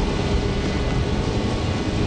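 Steady, loud din of factory machinery: a dense, even mechanical noise with no distinct strokes or breaks.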